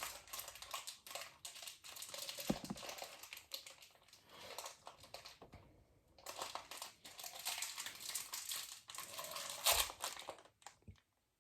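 Toy packaging crinkling and crackling as it is handled and opened, in irregular bursts with a short pause about six seconds in and a louder crackle near the end.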